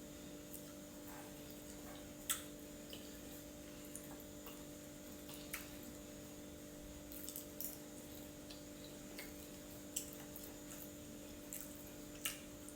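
Quiet eating: a handful of short, sharp clicks of cutlery against a dish and faint wet mouth sounds of chewing, spaced irregularly, over a steady low hum.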